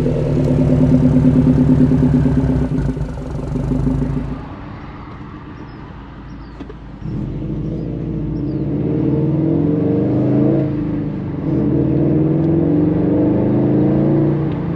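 Subaru WRX STI turbocharged flat-four running through an aftermarket AWE Touring cat-back exhaust, a deep, steady engine note. About four seconds in it drops in level. From about seven seconds it grows louder again, its pitch rising and stepping as the engine is revved.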